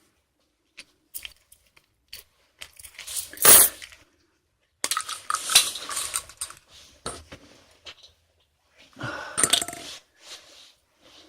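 Small hard parts being handled at close range: scattered clicks and clinks with a few short bursts of rattling and rustling.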